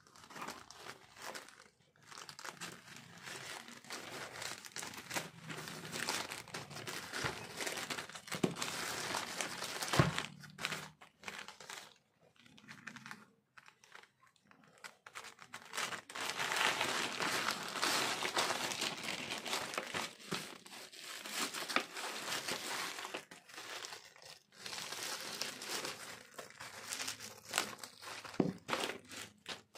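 Plastic courier mailer crinkling as it is cut open with scissors and handled, then bubble wrap rustling and being snipped near the end, with a few sharp clicks along the way.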